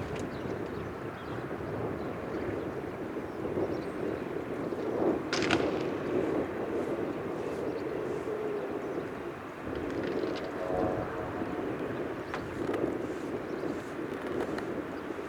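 Single piston engine and propeller of a Socata TB-20 Trinidad running steadily at a distance. A sharp click is heard about five seconds in.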